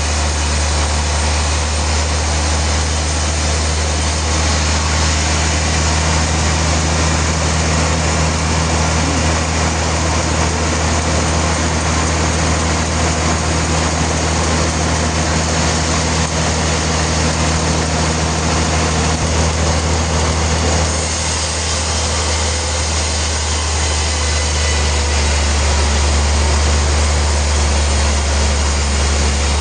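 Sawmill machinery running steadily, with a strong low hum under a dense hiss. The sound shifts slightly about two-thirds of the way through.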